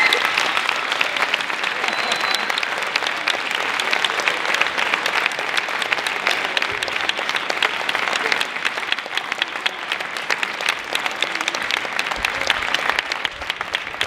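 Audience applauding: a dense, steady clapping that eases a little in the second half.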